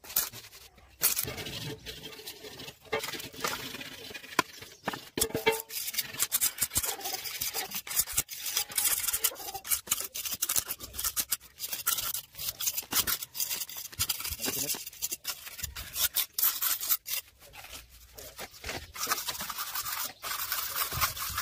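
Plastering tools scraping and rubbing over fresh cement mortar in many short, irregular strokes: a trowel and a straight batten being worked along a wall's border.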